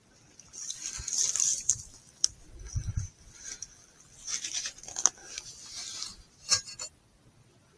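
Close handling noise from a rifle with a thermal scope being shifted: irregular rustling and scratching, several sharp clicks and a dull thump about three seconds in.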